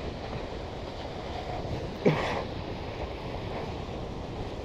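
Strong wind on the microphone and water rushing past the hulls of a Hobie 16 catamaran sailing fast in gale-force gusts, a steady rushing noise. About two seconds in comes one short, louder burst with a falling tone.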